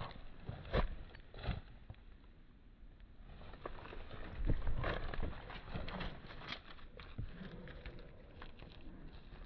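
Soft, irregular thumps and rustling, slowed down by the slow-motion recording. The strongest thumps come in the first two seconds and again about four and a half seconds in.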